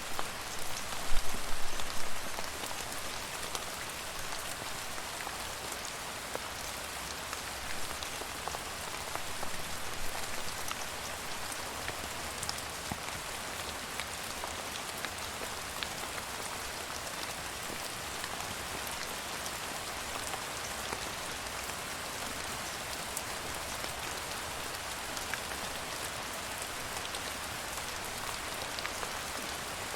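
Steady rain falling on a surface, a dense even hiss with many individual drop ticks, with a few louder splashes in the first couple of seconds.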